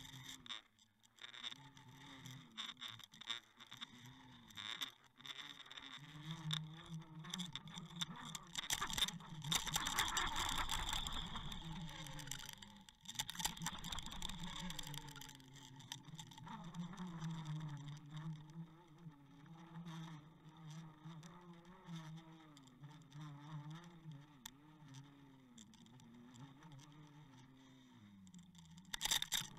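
A motor running steadily, its pitch wavering up and down, with a louder noisy stretch near the middle.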